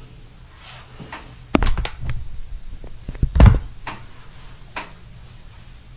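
A few dull thumps and knocks, the loudest about one and a half and three and a half seconds in, with lighter clicks between them.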